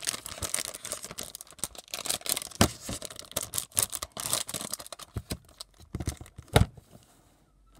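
Hands handling a plastic Blu-ray case: a run of rustles, scrapes and clicks, with two sharper knocks, one under a third of the way in and the loudest near the end.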